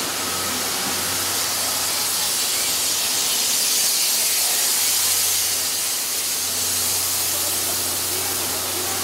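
Steam hissing steadily from a standing JNR Class C11 tank locomotive (C11 207), with a low steady hum underneath.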